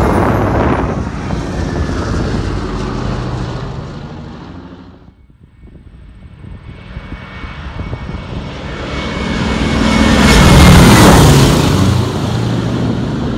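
Boeing B-17 Flying Fortress's four radial engines droning as the bomber flies by. The drone fades low about five seconds in, then builds to its loudest near the eleven-second mark as the plane passes close, and starts to fall away near the end.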